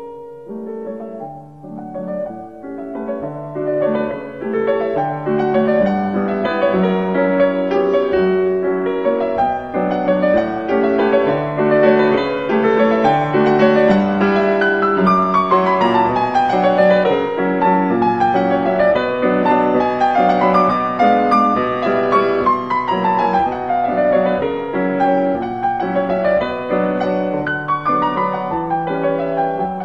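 Solo piano music playing a gentle melody, with several quick falling runs of notes in the middle.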